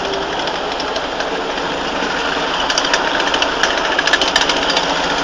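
Steady engine and traffic noise from idling vehicles, with a rapid clicking rattle joining in the second half.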